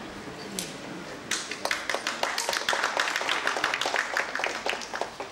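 An audience applauding, with the separate claps clearly heard. It starts about a second in and dies away near the end.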